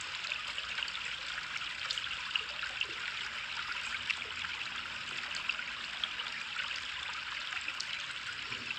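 Steady trickling of a small stream, with small drips and splashes scattered through it.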